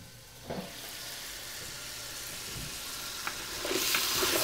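Chopped meats and sausage sizzling as they fry in a large covered pot. The lid is lifted off, and the sizzle gets louder and brighter near the end as steam escapes.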